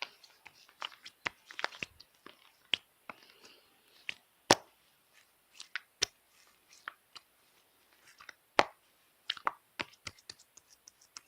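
Slime being squeezed and pressed by hand close to the microphone, giving irregular sticky pops, clicks and crackles, two of them much louder than the rest.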